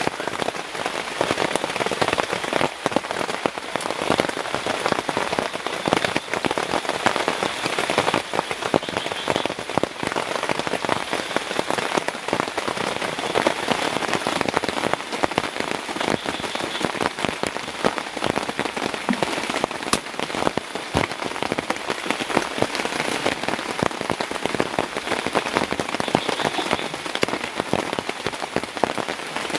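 Heavy rain falling steadily, a dense even hiss with many individual drops striking close by as sharp taps.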